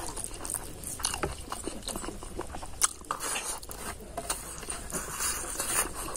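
A person chewing food close to the microphone, with irregular wet mouth sounds and sharp clicks now and then.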